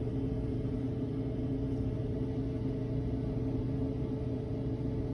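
Whirlpool washing machine running dry in its test mode, a steady electric hum.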